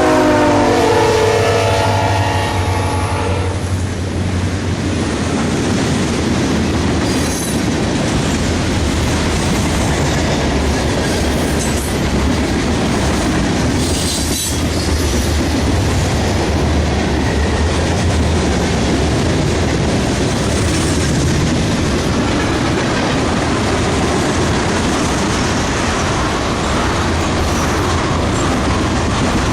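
Locomotive horn sounding for about three and a half seconds, its pitch dropping slightly. Then a train rolls steadily past with a low engine hum and wheels clicking over the rail joints.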